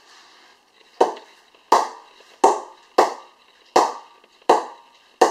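Cricket ball bounced on the face of a Slazenger V500 County grade 2 English willow bat: seven sharp knocks about three-quarters of a second apart, each with a short ringing decay. This is the bat's "ping", a sound the owner calls very promising for how well the ball comes off the willow.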